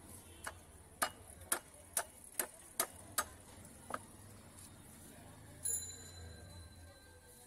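Wooden mallet knocking on the back of a large curved cleaver to drive it through a catla fish's flesh and bone: about eight sharp knocks roughly half a second apart, stopping about four seconds in. A short high-pitched tone sounds briefly near the end.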